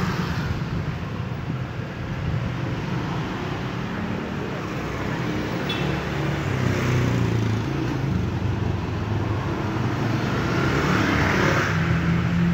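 Street traffic: motorcycle engines running and passing, with one passing more loudly near the end.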